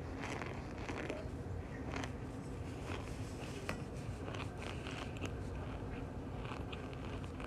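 Chunks of cornstarch being bitten and chewed close to the microphone, giving irregular small crunches and crackles over a low steady hum.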